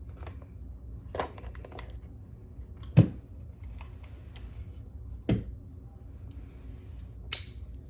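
Handling noises from a rifle scope as its lens cover is taken off: a few separate clicks and knocks, the loudest about three seconds in, and a short scraping rustle near the end.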